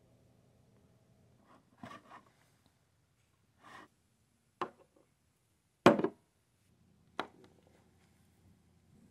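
Skincare bottles being handled on a wooden desk: a few separate short knocks and clicks a second or so apart, the loudest about six seconds in.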